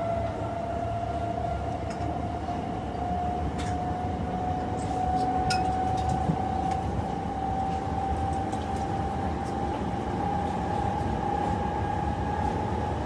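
Class 376 electric multiple unit accelerating hard from a stand: its traction motors give a steady whine that rises slowly in pitch over a heavy rumble from the wheels, with a few sharp clicks along the way.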